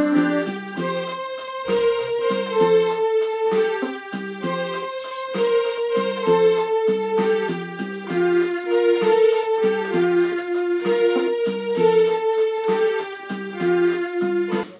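Casio MA-150 electronic keyboard played by hand: a slow melody of held notes over a repeating pattern of lower notes.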